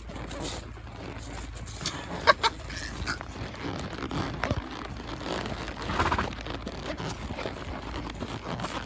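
A horse walking through dry fallen leaves: irregular crunching and rustling of hooves in the leaves, with a sharp knock about two seconds in and another louder moment about six seconds in.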